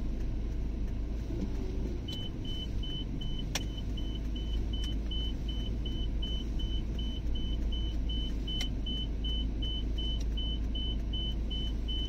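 Steady low rumble of a car driving slowly, heard from inside the cabin. About two seconds in, a high electronic warning beep from the car starts repeating evenly, nearly three short beeps a second, with a couple of faint clicks.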